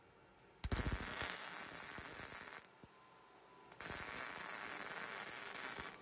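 MIG welder arc crackling on steel in two runs of about two seconds each, with a pause of about a second between them.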